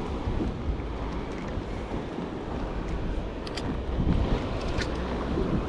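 Steady wind rumble on the microphone over water lapping against a kayak, with a few faint clicks near the middle.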